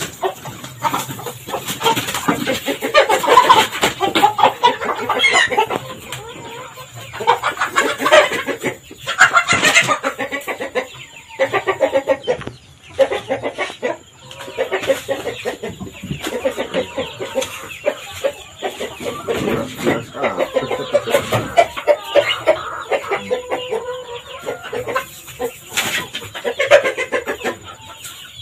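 Chickens clucking and squawking irregularly, with a few brief hissing bursts from a sprayer.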